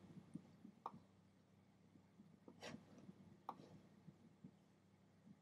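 Near silence: room tone with three faint, short clicks of a computer mouse as an image is dragged and resized.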